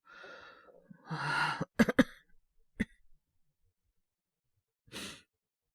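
A man coughing from a cold: a breath, a longer throaty cough about a second in, then two short sharp coughs and a smaller one, a pause, and another breath near the end.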